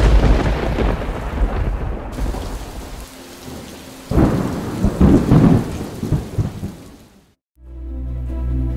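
Thunderstorm: a loud thunderclap rumbling away over rain, then a second rumbling peal about four seconds in, fading out shortly before the end.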